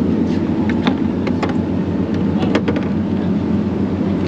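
Steady low rumble of a fishing boat's engine under way. A few sharp clicks and knocks come from a plastic cooler being opened and handled.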